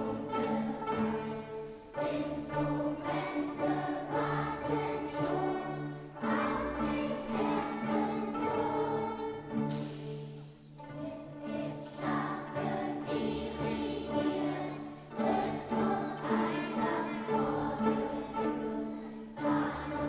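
Children's choir singing with a string orchestra of violins and cellos, in sustained phrases of about four seconds each.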